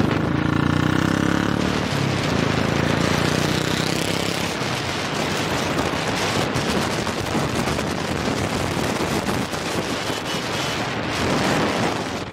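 Wind rushing over a moving microphone, a steady roar broken by crackling buffets, with motor vehicle running noise beneath it.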